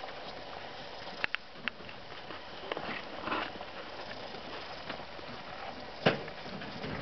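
Hay rustling and crackling as a rabbit doe shifts in her nest while giving birth, with a few sharp clicks and one louder thump about six seconds in.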